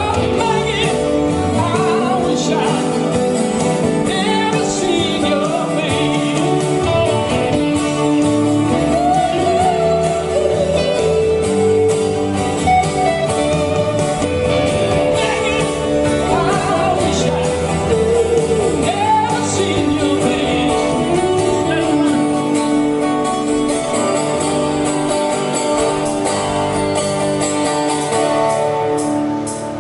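Live music from a guitar duo: an electric guitar playing lead lines that bend in pitch, over a strummed acoustic guitar, both through a PA.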